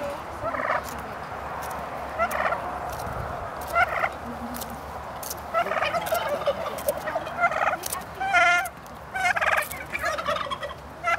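Domestic turkey toms gobbling: about eight short, rattling gobbles a second or two apart, coming closer together and louder in the second half.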